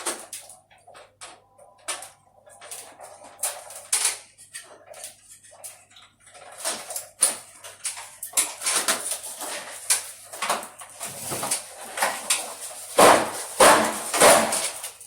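Irregular knocks, clicks and scraping of metal and plastic parts as an air conditioner unit is handled and taken apart for cleaning, with a few louder knocks near the end.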